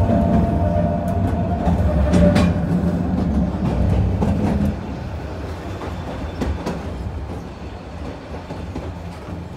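762 mm narrow-gauge electric train running, heard from inside the car: a steady low rumble with a thin whine in the first couple of seconds and a few sharp wheel clicks over rail joints. It gets quieter about halfway through.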